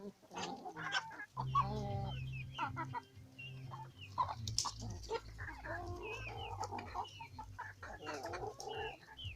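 A flock of Kienyeji chickens clucking, with many short calls overlapping. A low steady hum sits underneath from about a second and a half in.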